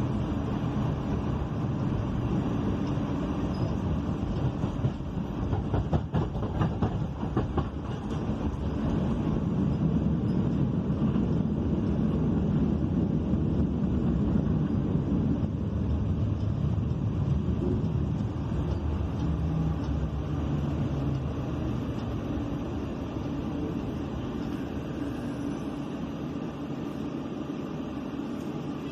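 Sheffield Supertram running along its track, heard from inside the car: a steady low rumble with a run of clicks and knocks about six seconds in, and a few short low hums later on.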